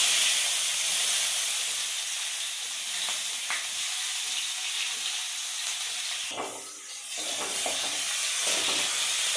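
Chopped onions hitting hot oil in a metal kadhai with bay leaf and cumin, sizzling loudly from the moment they go in. About six seconds in, a spatula stirs them against the pan while the sizzle goes on.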